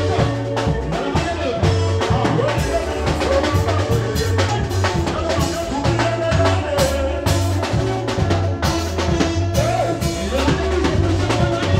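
Live band playing dance music: a drum kit keeping a steady beat over electric guitars and a low bass line.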